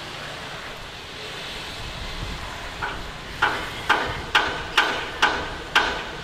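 Hammer blows on metal, evenly spaced at about two a second, each ringing briefly. They start about three seconds in, over a steady background noise.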